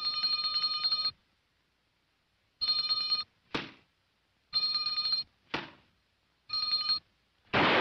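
Rapidly trilling bell like an old telephone ringer, sounding in four short bursts about two seconds apart. Brief sharp sounds fall between some of the bursts, and a loud noisy burst starts just before the end.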